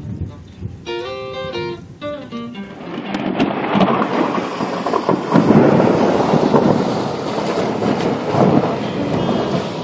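A few guitar notes at first, then from about three seconds in a heavy downpour with thunder rumbling through it, swelling louder twice.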